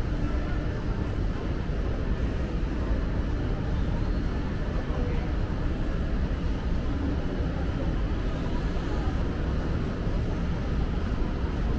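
Steady shopping-mall background noise: a low rumbling hum with no distinct events.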